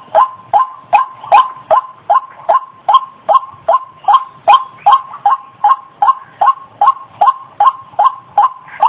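White-breasted waterhen calling 'kruok' over and over, as played for luring: short, harsh notes repeated at a steady pace of about two and a half a second, each dropping slightly in pitch.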